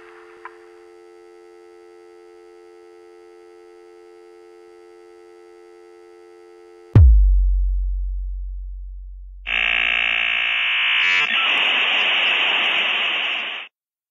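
Telephone dial tone, a steady two-note hum: the line is open with no call on it. About seven seconds in it cuts off for a sudden deep boom that fades over a few seconds, then comes a loud electronic buzz that turns to hiss and stops sharply.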